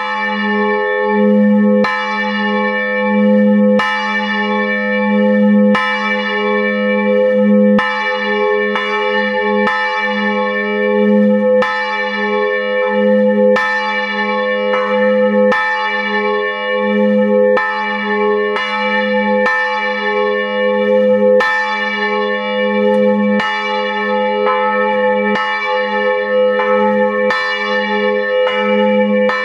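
Church bell swinging in full peal, heard from inside the belfry: the clapper strikes about once a second, and each stroke rings on into the next over a steady deep hum.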